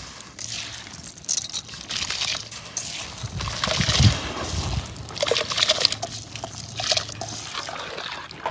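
Raw rice tipped by hand into a large metal pot of water, then stirred with a spoon: irregular bursts of sloshing and trickling water.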